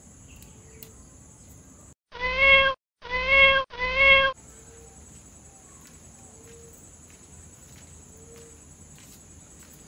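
Three loud cat meows in quick succession, each well under a second and held at a steady pitch, edited in as a sound effect with the background dropping out around them. A steady cricket drone runs before and after.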